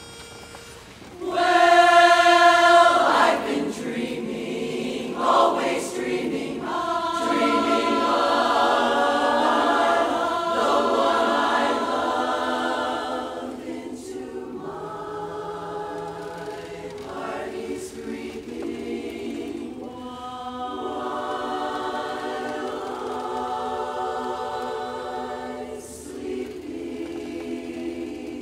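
Large women's chorus singing a cappella. It comes in loudly on a chord about a second in, then goes on in sustained chords with brief breaks between phrases.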